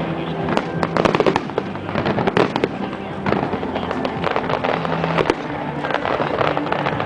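Aerial fireworks bursting and crackling, many sharp bangs in quick succession and in clusters, with music playing underneath.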